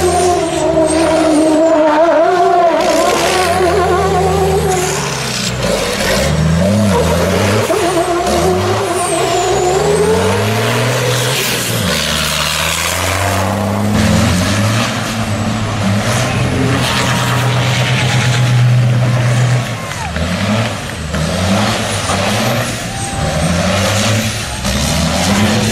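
Racing truck engine revved hard through repeated rising and falling sweeps, held at a steady high note for a few seconds in the middle, with faint high whistling glides over it.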